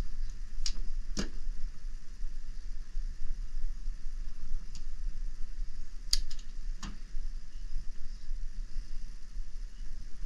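Hand wire strippers snipping and clicking as they strip thin thermostat wire: a handful of short, sharp clicks, two about a second in and three more between about five and seven seconds, over a steady low hum.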